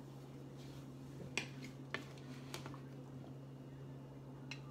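A few light, scattered clicks of utensils against a plate or dish as food is served, over a low steady hum.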